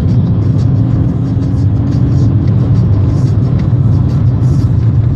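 Car driving at speed, heard from inside the cabin: a steady, loud low drone of engine and tyres with wind noise.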